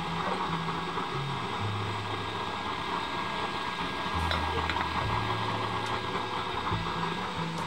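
Steady roar of a home-made used-oil burner firing under a pot of boiling water, over background music with a low, stepping bass line.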